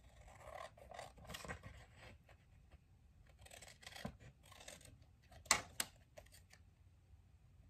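Scissors cutting through a paper print in a series of quiet snipping strokes, with two sharp clicks a little over five seconds in, the loudest sounds.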